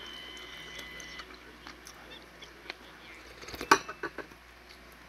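Eating soup from a metal spoon: soft mouth sounds as the spoon is sipped from, with a thin steady high tone during the first second, then a cluster of sharp spoon clicks a little before the end.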